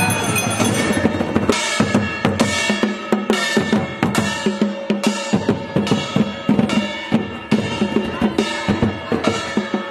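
Kirtan music: drums beating a fast, steady rhythm with sharp ringing strikes over sustained instrument tones.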